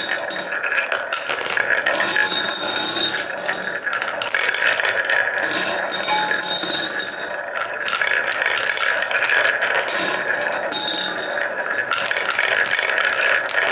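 Many wooden balls rolling round a wooden marble-run bowl and knocking against each other and the bowl: a dense, continuous rattle of small clicks.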